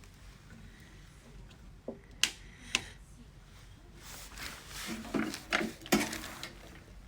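A few sharp clicks and knocks of hard objects being handled and set down, three separate ones in the first three seconds and a closer cluster about five to six seconds in.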